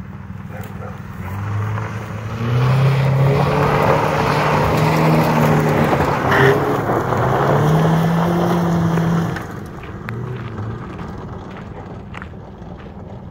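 A car driving past close by on a dirt lot, its engine revving up and easing off under a hiss of tyres on loose dirt. It is loudest from about two and a half seconds in until about nine seconds in, then drops back to a distant rumble as it pulls away.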